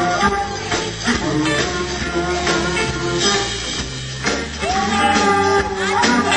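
Rock music: a band with guitar and a singing voice, with a long held note in the second half.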